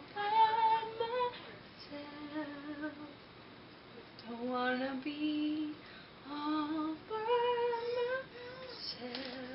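A woman's voice singing a slow melody in long held notes, phrase by phrase with short breaks between.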